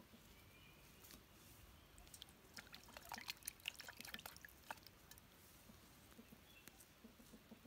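Faint, quick wet clicks and crackles from an opened Ayam Cemani chicken carcass being handled, bunched together over about two seconds in the middle.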